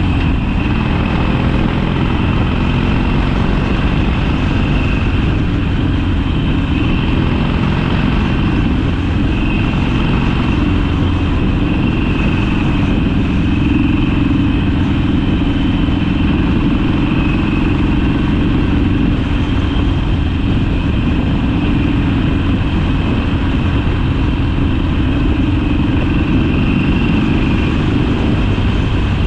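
Harley-Davidson Sportster's air-cooled V-twin engine running steadily on the move, its exhaust note holding a fairly even pitch with only slight rises and falls.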